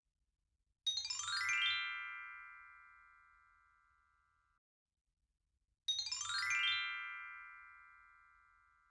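An electronic chime effect plays twice, about five seconds apart: each time a quick run of bright bell-like notes settles into a ringing chord that fades away.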